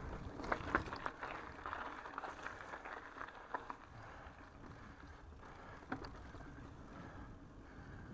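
Mountain bike riding over a rocky forest trail: tyres rolling and the bike rattling, with a run of sharp knocks in the first few seconds and one more about six seconds in, then quieter, steadier tyre noise on smooth dirt.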